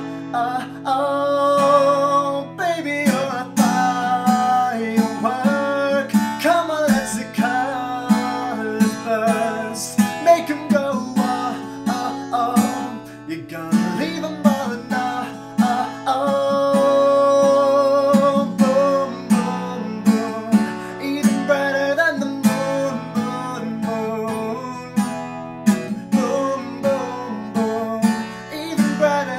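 Strummed acoustic guitar under a singer holding long, wavering notes, in an acoustic pop song.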